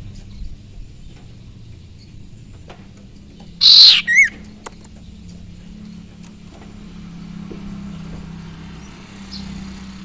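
A caged sirtu (cipoh) gives one loud call a little over halfway in: a short harsh burst followed by a brief wavering whistle. A faint low hum runs underneath.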